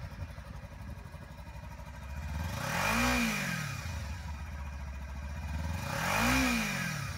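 2014 Kawasaki Ninja 300's fuel-injected, liquid-cooled twin-cylinder engine idling, blipped twice with the throttle. The revs rise and fall about three seconds in and again near the end.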